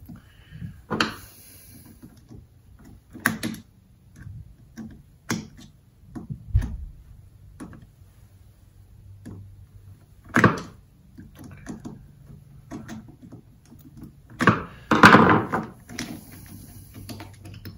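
Small metal fuel-pump parts and screws of an outboard motor being handled and set down on a workbench: scattered clicks and knocks, with a louder clatter lasting about a second near the end, over a faint steady hum.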